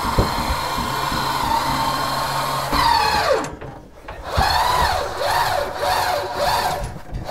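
Electric motor of a powered stair-climbing hand truck running under the load of a boiler. It gives a steady whine that winds down in pitch about three seconds in, then runs again in about four short whines that rise and fall in pitch.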